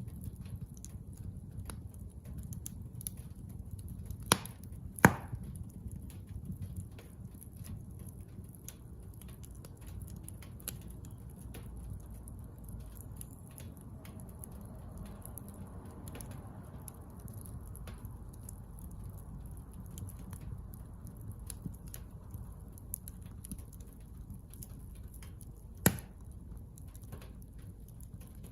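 Bonfire of scrap construction lumber crackling over a low steady rumble, with three sharp pops: two about four and five seconds in, and one near the end.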